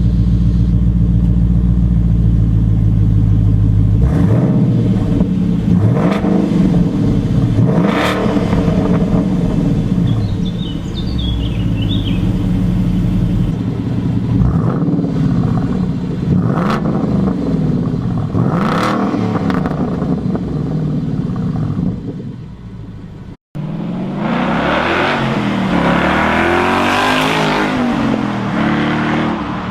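Ford Mustang Boss 302's 5.0-litre V8 idling, then blipped through a series of quick revs that rise and fall back to idle. After a brief cut about 23 seconds in, it is revved again, louder and harsher, with the side pipes.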